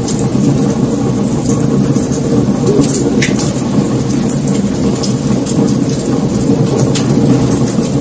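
Wood fire burning: a steady low rumble of flames with scattered sharp crackles and pops from the burning logs.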